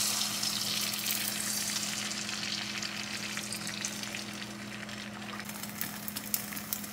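Liquid egg white sizzling in a hot oiled frying pan as it is poured in. The hiss is loudest at first and settles, turning to scattered crackles and pops near the end as the egg sets.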